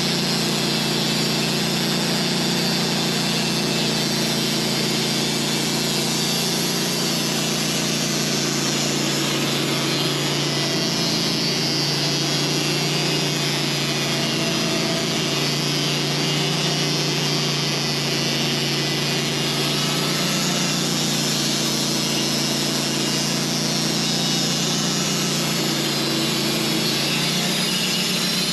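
Sawmill running steadily through a cut in a honey locust log: an even engine drone under the hiss of the blade in the wood.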